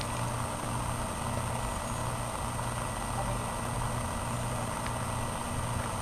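A steady, low engine hum with a slow, even throb, like an idling engine.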